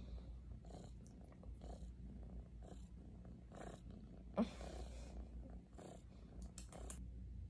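Domestic cat purring close to the microphone: a steady low rumble that swells softly about once a second with its breathing. A single brief sharp sound about four and a half seconds in.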